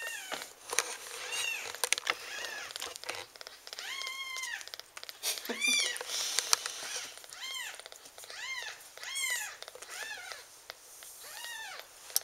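Week-old Ragdoll kitten mewing over and over, about a dozen high squealing cries that each rise and fall in pitch, with short soft clicks in between. These are the cries of a hungry newborn kitten wanting its turn at the milk.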